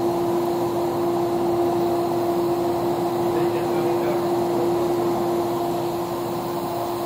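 Vapormist VM-10 steam humidifier running: a steady hum with one constant tone over an even rushing noise.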